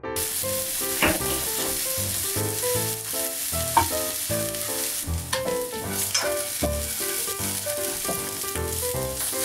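Garlic, basil and onion sizzling in olive oil in a frying pan, stirred with chopsticks, with scattered clicks and scrapes against the pan. Background piano music plays underneath.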